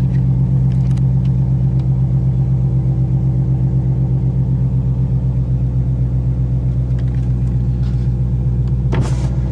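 Car engine idling steadily, a loud low rumble with a fast, even pulse and no change in pitch.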